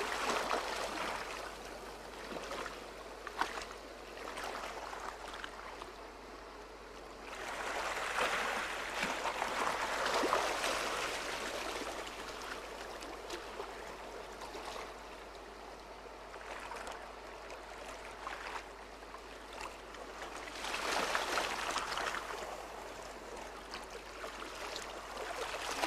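Seawater washing and trickling among shoreline rocks, swelling louder twice as waves surge in, once about a third of the way in and again toward the end.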